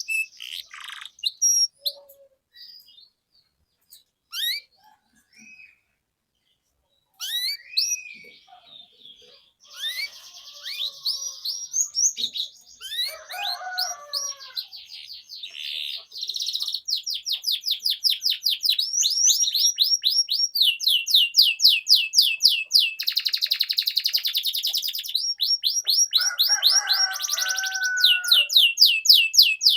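Domestic canary singing. A few scattered chirps with short pauses come first; from about ten seconds in it breaks into continuous song of long, fast trills of repeated sweeping 'cuit-cuit' notes.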